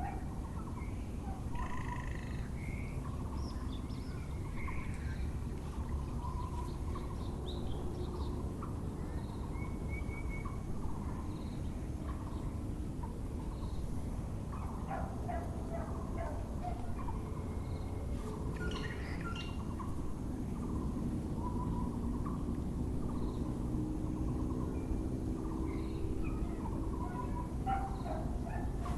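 Birdsong led by a Müller's barbet (Taiwan barbet) repeating short calls over and over, with other small birds chirping higher up, over a steady low background rumble.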